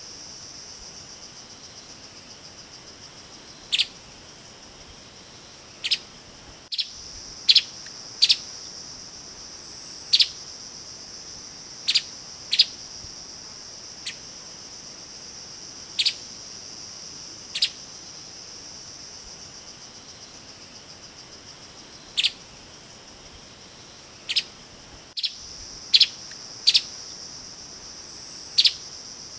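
Streaked spiderhunter giving short, sharp call notes at irregular intervals, singly or in quick pairs, about seventeen in all with a pause of a few seconds midway. Behind them a steady high insect drone runs throughout.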